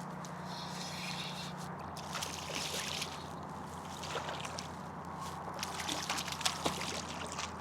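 Water sloshing and dribbling with scattered sharp clicks, over a steady low hum.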